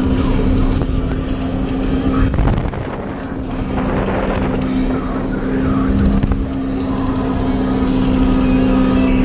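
Sea-Doo Wake 170 personal watercraft's engine running at a steady drone over a rush of wind and water noise. The drone drops out briefly about two and a half seconds in, then picks back up.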